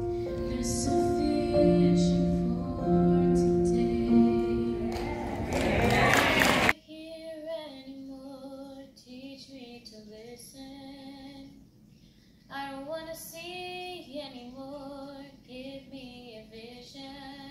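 Background music: held instrumental notes building into a rising swell that cuts off abruptly about seven seconds in, then a quieter solo voice singing in short phrases.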